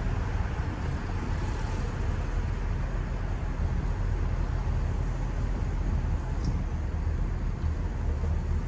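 A car driving along a street: a steady low rumble of road and engine noise.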